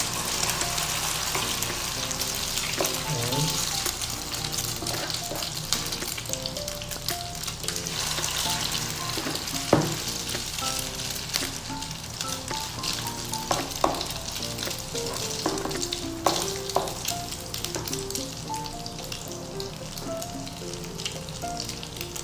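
Diced potato, onion and egg mixture sizzling steadily as it fries in hot oil in a pan, with a few sharp knocks in the middle.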